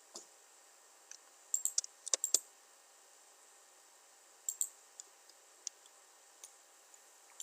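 Computer keyboard and mouse clicks: a quick run of keystrokes about two seconds in, a pair a couple of seconds later, then scattered single clicks, over faint hiss.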